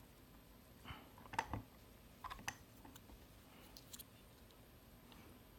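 Faint, scattered clicks and scrapes of lock-picking tools being worked in a Vidmar cabinet slider lock, a few small clicks in clusters, the loudest about a second and a half in.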